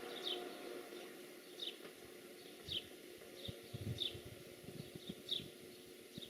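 A small bird calling outdoors: short, high, falling chirps repeated about once a second, with faint low thuds underneath.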